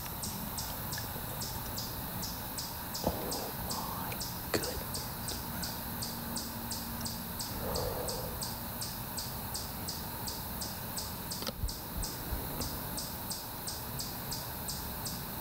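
An insect chirping in a strict, even rhythm, about two to three high-pitched chirps a second, over quiet woodland background.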